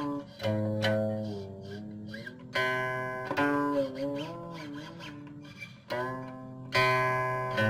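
Guqin played solo: several sharply plucked notes, each left to ring and fade while the pitch slides and wavers as the player's left hand glides and presses along the string.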